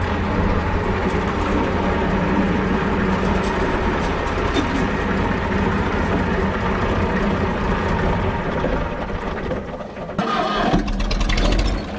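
An IMT tractor's three-cylinder diesel engine idling steadily, heard from inside the cab. About ten seconds in, the sound dips briefly and changes to a deeper, heavier rumble.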